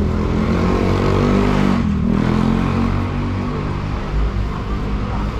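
A motor vehicle's engine running as it passes close by on the street, loudest in the first couple of seconds and then fading into general traffic noise.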